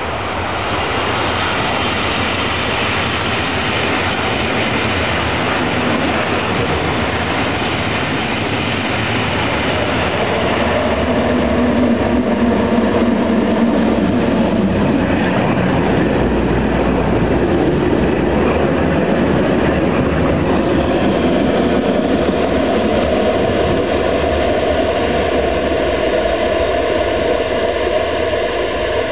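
Two coupled Tatra KT4D trams rolling slowly around a tight turning loop, coming close and passing about halfway through, then moving off around the curve. Their wheels squeal on the curve, several steady high tones over the rolling noise.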